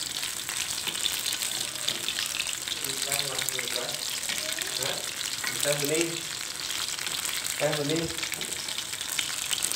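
Battered banana fritters deep-frying in hot oil in a wok, a steady crackling sizzle, while a metal spatula turns and stirs them in the oil.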